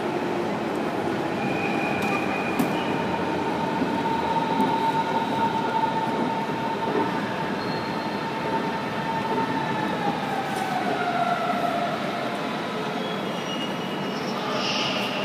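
A train running through the station hall: a steady rumble under a whine that holds its pitch and then slides lower about ten seconds in.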